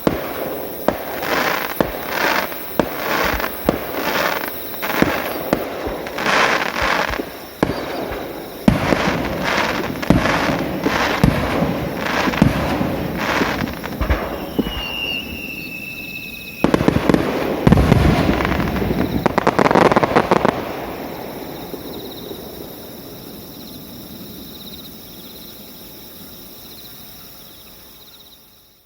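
Aerial fireworks bursting in a rapid series, several bangs a second. About halfway through a falling whistle sounds. The loudest, densest volley of bursts follows, then the rumble fades away slowly.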